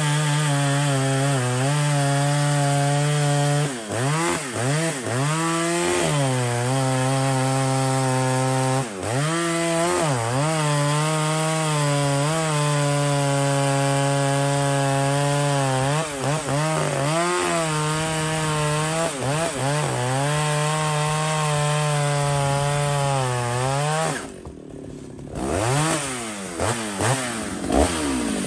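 Two-stroke chainsaw cutting through a log, running at high revs under load with short dips and rises in pitch as the throttle is eased and opened. About 24 seconds in it drops back briefly to a lower, quieter speed, then revs up again near the end.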